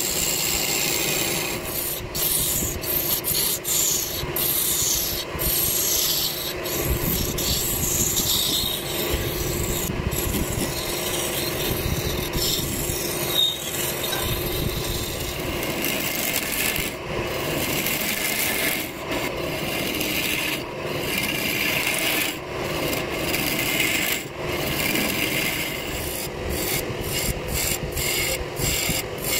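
Wood lathe spinning a wooden blank while a hand-held turning tool cuts into it: a continuous scraping cut, broken by many brief gaps as the tool eases off, with a steady lathe hum underneath.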